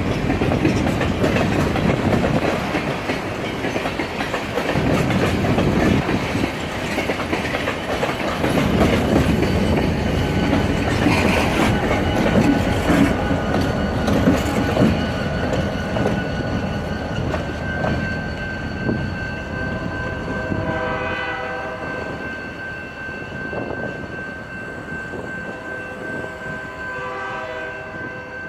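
A train passing, with a steady rumble and wheel clatter that fade over the last third. A horn sounds twice near the end, and a thin steady high tone runs through the second half.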